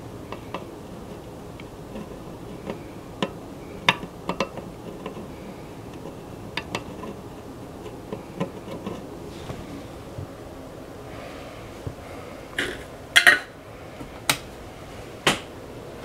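Scattered light clicks and taps of small hand tools on a circuit board and workbench during hand soldering, over a steady low background hiss. A quick run of louder clicks comes about three quarters of the way through.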